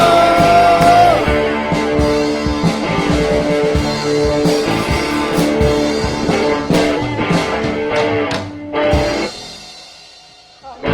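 Rock music with guitar and drums and no singing. It drops away about nine seconds in and fades nearly to quiet before the music comes back.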